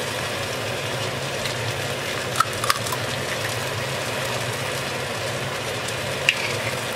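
An egg is cracked and dropped into tomato sauce simmering in a cast-iron pan: two short cracks about two and a half seconds in, over a steady low hum. A single light click near the end.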